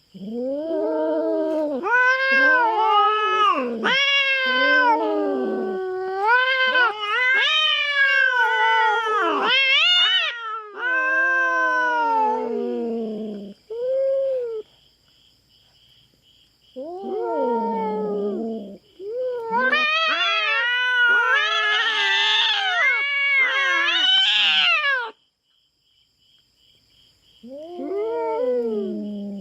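Cats caterwauling in a territorial standoff: long, wavering yowls that rise and fall, in several bouts with short pauses between them.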